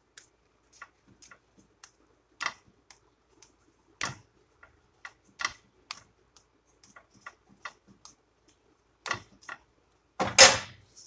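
Irregular clicks and ticks, about one or two a second, from a quesadilla cooking in a flat pan under a slotted metal spatula. About ten seconds in comes a louder, short metal scrape and clatter from the spatula against the pan.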